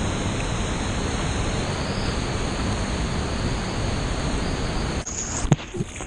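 Steady rush of churning whitewater in a river canyon. About five seconds in the rushing cuts out abruptly and a couple of sharp knocks follow as water splashes over the kayak's bow.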